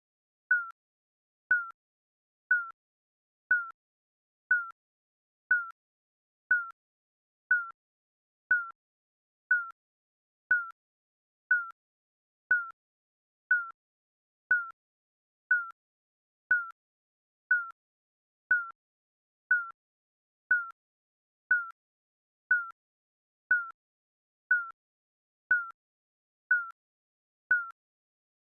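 Digital countdown timer beeping: a short, high, slightly falling blip once every second, evenly spaced, with silence between.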